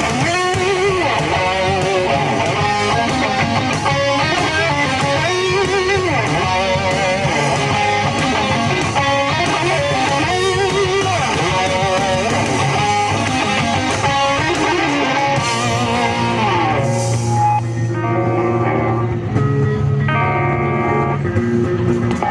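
Live rock band playing an instrumental passage with electric guitar and bass, no vocals, thinning out near the end to picked guitar notes over a held bass note.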